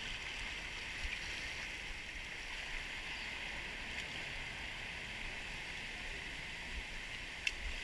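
Steady wash of ocean surf breaking and draining over a rocky shore ledge.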